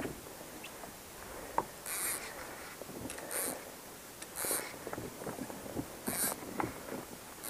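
Hobie Mirage pedal drive being pedalled in reverse: a short swish with each stroke, repeating about every one and a half seconds, with a few faint clicks between.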